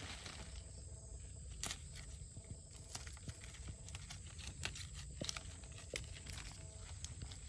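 Ivy gourd leaves being plucked from their vines by hand: irregular small crisp snaps of stems breaking and leaves rustling, over a low steady rumble.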